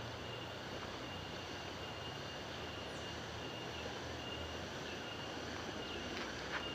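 Steady outdoor background noise, an even rushing hiss with a faint high steady tone running through it.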